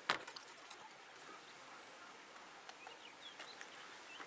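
Small birds chirping in short, quick notes, starting about two-thirds of the way in, over quiet outdoor background. A single sharp click right at the start.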